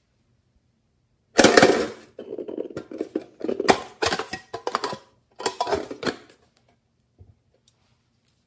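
Hands handling and opening a hard plastic case with a glass nail-polish bottle inside: rattling and clacking plastic for about five seconds, starting loud a little over a second in, then a few faint ticks.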